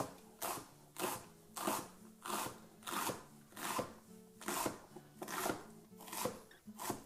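Kitchen knife slicing through raw cabbage onto a wooden cutting board: a steady run of crisp crunching cuts, about one every two-thirds of a second, with quiet background music.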